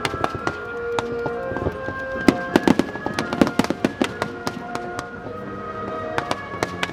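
Fireworks bursting in rapid, crackling volleys of sharp cracks, thickest a little past the middle, over music played with the show.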